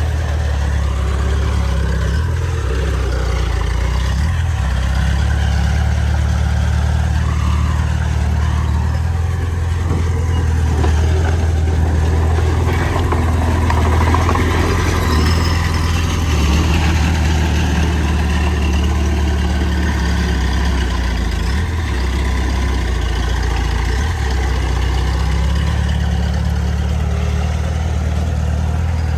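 Bulldozer's heavy diesel engine running steadily, with a strong low drone that swells a little about halfway through.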